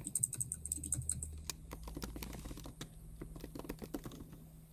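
Typing on a computer keyboard: a quick run of key clicks in the first second or so, then steadier keystrokes until near the end.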